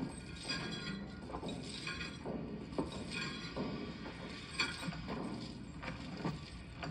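Irregular knocks and light metallic clinks, roughly one or two a second.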